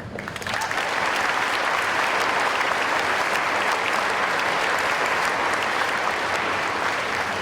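Audience applauding in a hall: many people clapping at once, building up over the first second and holding steady.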